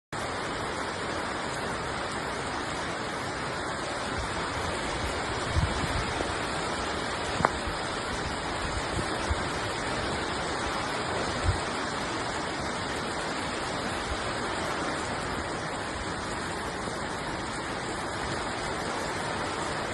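Heavy rain pouring down in a steady, dense hiss, with a few short knocks in the first half.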